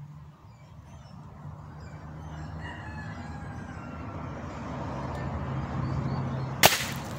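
A rooster crows in the background, then about six and a half seconds in comes a single sharp crack: the shot of a Daisy Powerline 901 multi-pump .177 air rifle, pumped ten times, with the pellet striking a leather boot target.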